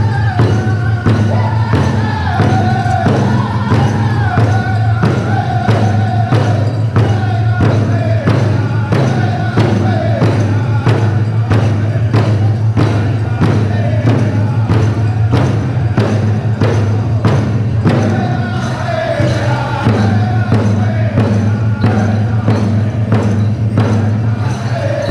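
Powwow drum group singing a chicken dance song: several men's voices in descending phrases over a large shared drum beaten in a steady, even pulse.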